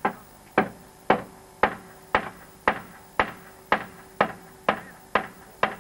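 A steady series of sharp knocks, about two a second, each with a brief ring, as of repeated hammer blows.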